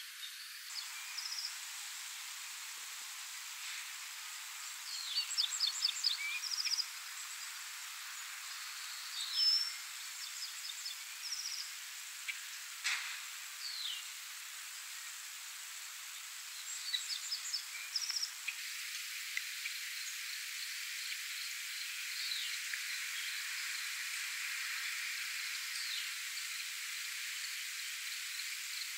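Light rain making a steady soft hiss, with birds singing over it in short bursts of rapid trills and chirps and a few down-slurred calls. A single sharp click comes near the middle, and the hiss grows a little louder just past halfway.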